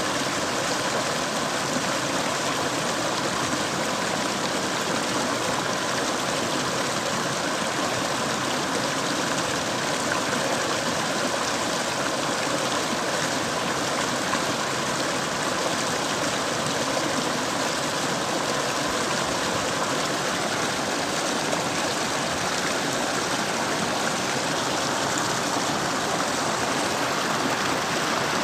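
Mountain stream rushing steadily over rocks, an even, unbroken sound of flowing water.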